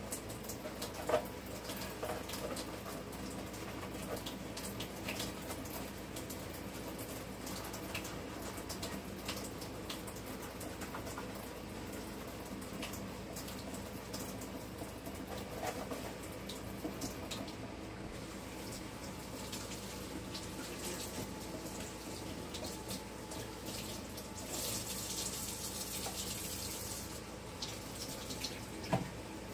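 Kitchen tap running into a sink during hand-washing, with scattered light clinks and knocks of dishware; the water runs harder for a few seconds near the end.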